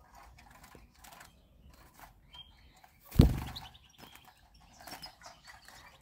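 A sudden flutter of wings about halfway through as a European goldfinch is let go from a hand and flies off. Faint short bird chirps come before and after it.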